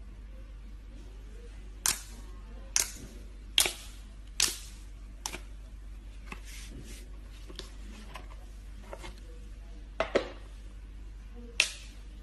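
Slime being pressed and squeezed, giving a series of sharp, irregularly spaced pops and clicks as air pockets in it burst, over a steady low hum.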